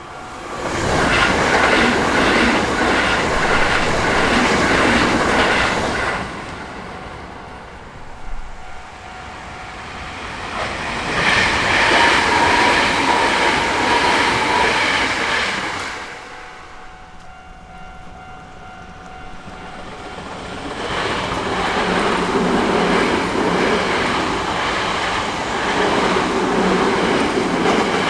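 Hankyu Kyoto Line electric trains rolling through a level crossing with wheel clatter, loud in three long passages about a second, eleven seconds and twenty-one seconds in. Between them fainter steady tones carry on, which could be the crossing's warning bell.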